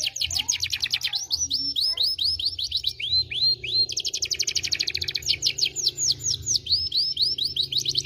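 Domestic canary singing: long rolling trills of rapidly repeated sweeping high notes that change speed from phrase to phrase, with one very fast trill about halfway through.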